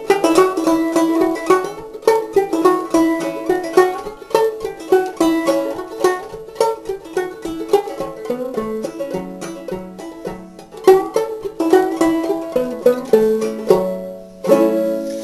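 Five-string banjo played clawhammer style: a quick run of plucked melody notes with left-hand pull-offs worked in. The tune steps down into lower notes in the second half and ends on a ringing chord.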